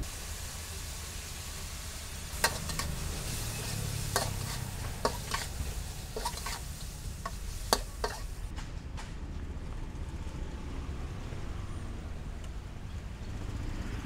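Metal spatula stirring and scraping a meat and holy-basil stir-fry in a wok, the food sizzling with a steady hiss over a low rumble. Sharp clinks of the spatula striking the wok come about once a second through the first half, and the sizzle thins out after that.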